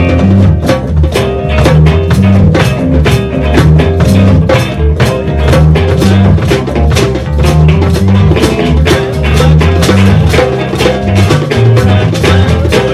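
Band music with a drum kit keeping a steady beat under a moving bass line.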